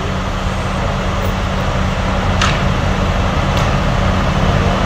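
Steady low drone of fire engines running at the scene, a constant hum over a rumbling noise, with a brief sharp tick about halfway through.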